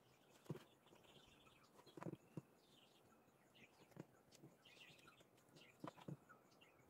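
Very faint sounds: a few soft taps and knocks as a soldering iron and small electronic parts are handled on a workbench, with faint bird chirps in the background.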